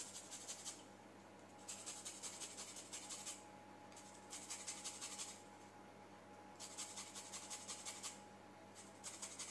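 Lemon peel being zested on a small handheld grater: faint runs of quick scraping strokes, each about a second long, broken by short pauses, five runs in all.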